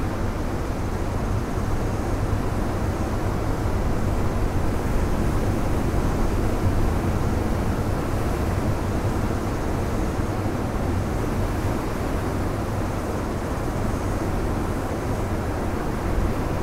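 Ocean surf breaking and washing in among shore boulders: a steady, deep rush of water with no separate crashes, swelling slightly about midway and easing again.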